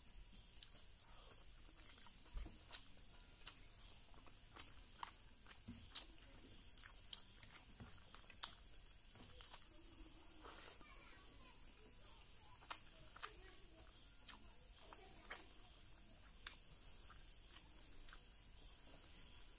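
Close-up eating sounds: scattered sharp wet clicks and smacks of chewing and of hand-mixing rice and fish curry, the loudest about eight seconds in. Behind them runs a steady high-pitched insect drone with pulsed chirps, like crickets.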